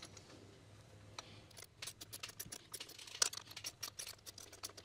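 Quiet, irregular metallic clicking of hand tools and fasteners as a stud is run in to hold the new water pump on the engine, the clicks coming thicker in the second half.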